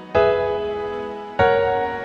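Piano music: two chords struck about a second and a quarter apart, each left to ring and fade.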